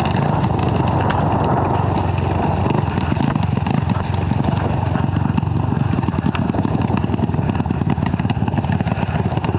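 Dirt bike engine running at low revs, a steady rapid pulsing that grows more uneven in the second half.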